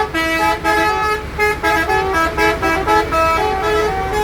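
A bus's multi-tone 'telolet' musical horn playing a quick tune of short stepped notes, over a steady low rumble.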